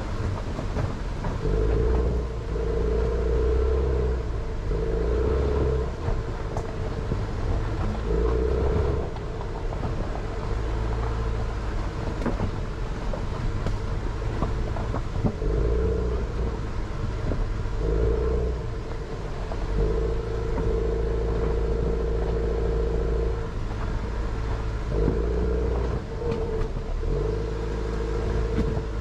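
Jeep Renegade's engine pulling in repeated surges of throttle, a few seconds each, over a rough rocky unpaved road, with the steady rumble and scattered clatter of tyres and suspension over loose stones.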